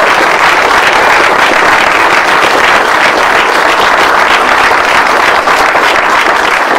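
A roomful of people applauding steadily, many hands clapping at once; it cuts off suddenly at the end.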